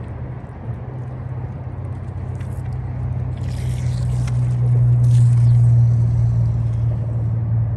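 Outdoor river ambience: a steady low rumble under the rushing noise of flowing water, growing louder through the first five seconds, with a couple of brief hissy splashes around the middle.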